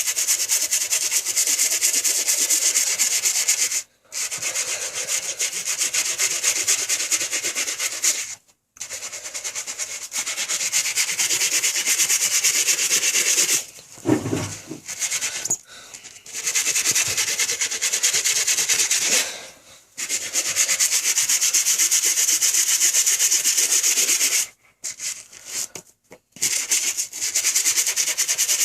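Toothbrush scrubbing toothpaste into a sneaker's translucent icy rubber sole, with fast back-and-forth strokes in long runs broken by several short pauses.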